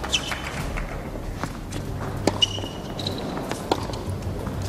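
Tennis rally on an indoor hard court: racket strikes and ball bounces sound as sharp knocks about every second or so. Shoes squeak briefly on the court near the middle, over the low hum of a quiet crowd.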